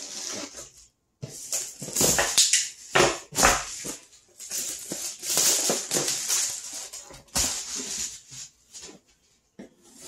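Unboxing a cardboard box: a pocket knife slitting the packing tape, then cardboard scraping and a plastic bag crinkling as it is pulled out, in irregular rustling bursts with a few sharp knocks.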